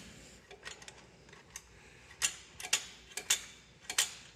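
Irregular sharp metallic clicks and taps, a few at first and more from about halfway, as metal fittings of the injector lines are worked by hand inside the John Deere 720's fuel injection pump housing.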